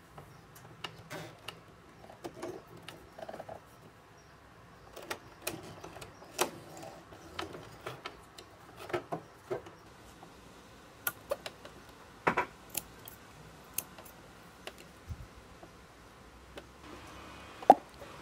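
Scattered light clicks and taps from slowly hand-cranking a Singer Heavy Duty 4432 sewing machine and handling the stitched leather strap, with one sharper click near the end.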